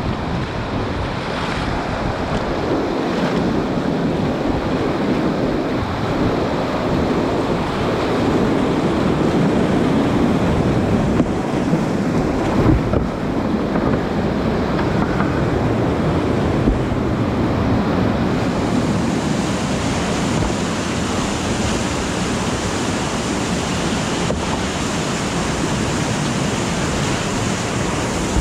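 Loud, steady rush of whitewater rapids around a kayak running through them, growing hissier about two-thirds of the way through. A few brief thumps stand out around the middle.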